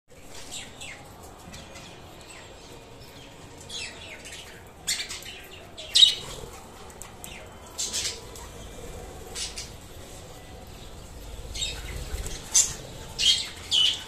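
Budgerigars giving short, sharp chirps, scattered through the stretch about once a second or less, the loudest about six seconds in and a quick cluster near the end.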